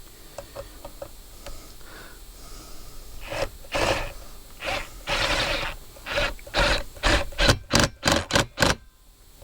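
A series of short scraping strokes of hand work: a few spaced strokes at first, then about four a second, stopping abruptly near the end.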